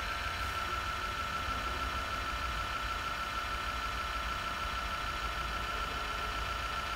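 Steady background hum and hiss with a thin, steady high whine; nothing starts or stops.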